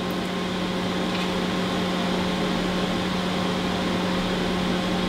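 Steady hum of running bench electronics: a constant low tone with fainter higher tones over an even, fan-like hiss.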